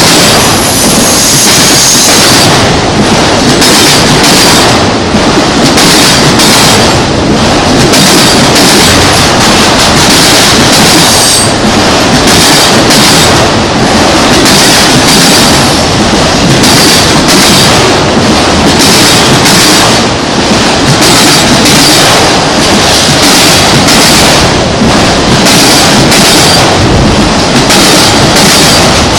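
Freight train rolling past close by: a loud, steady rumble of cars and wheels on the rail, with a rhythmic clickety-clack and a thin high wheel squeal.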